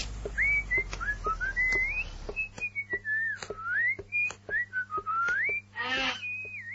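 Cartoon whistling of a wandering, carefree tune, with light footstep ticks about three times a second. A short wavering, pitched cry comes near the end.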